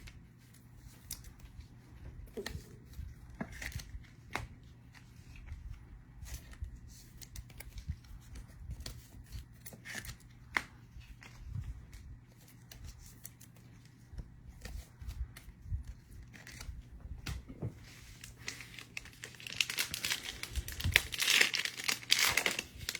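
Trading card packs and cards being handled, with scattered light taps and rustles, then a card pack's wrapper torn open with loud crinkling near the end.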